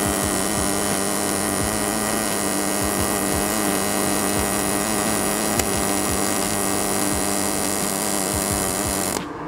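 EWM Picomig 180 Puls inverter MIG/MAG welder running a pulsed arc on steel sheet: a steady, even buzz over a hiss, with little of the crackle of spatter. The arc cuts off shortly before the end.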